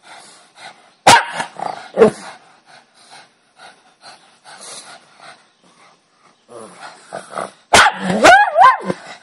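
Dogs play-fighting: two sharp barks about a second and two seconds in, scuffling and low growls in between, then a loud run of barks and yips with a wavering pitch near the end.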